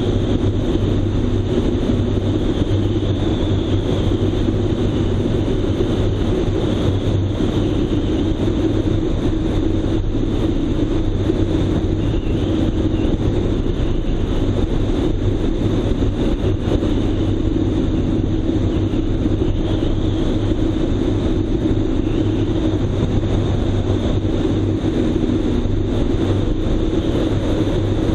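Airplane engine and propeller droning steadily in flight, with wind noise over it and no change in power.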